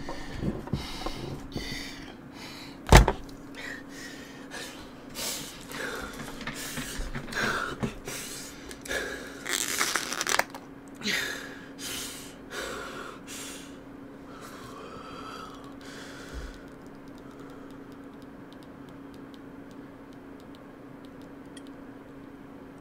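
A man breathing hard in short, sharp gasps and snorts over a steady low hum, with a single loud thump about three seconds in; the breaths die away after about fourteen seconds.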